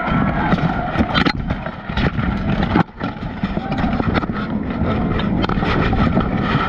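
Close-quarters armoured grappling heard from a worn GoPro: heavy rumbling and scraping of steel armour and padding against the camera, with several sharp knocks.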